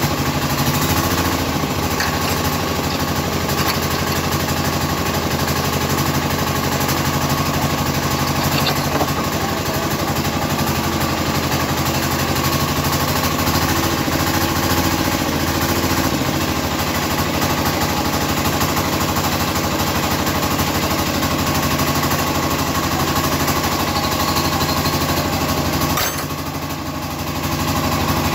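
Small single-cylinder diesel engine (Platinum 7.5 hp) running steadily with a fast, rattly knock. The sound goes briefly muffled and quieter near the end.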